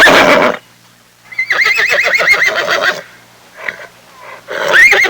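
Horse whinnying: the end of one whinny, then a long whinny with a rapidly quavering pitch lasting under two seconds, and another beginning near the end.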